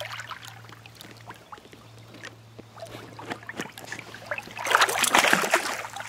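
A hooked bass splashing at the surface beside a boat hull: small scattered splashes at first, then a loud burst of thrashing splashes about five seconds in as it is pulled alongside.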